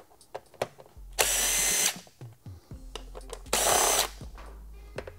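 Cordless drill-driver with a 4 mm Allen bit spinning out bolts, in two short runs of under a second each, about a second in and again near the four-second mark. Light clicks of handling come between the runs.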